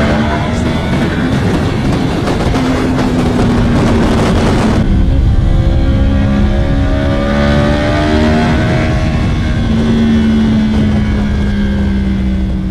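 Yamaha R1M's crossplane inline-four running under way through its custom aftermarket exhaust, the engine note steady with small shifts in revs. A loud rushing noise lies over it for the first five seconds or so and stops abruptly.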